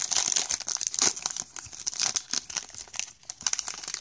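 Plastic wrapper of a Topps baseball card pack crinkling as hands tear it open, a dense continuous crackle.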